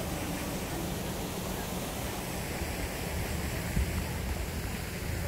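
Wind buffeting the camera's microphone: a steady rushing noise with a fluttering low rumble underneath.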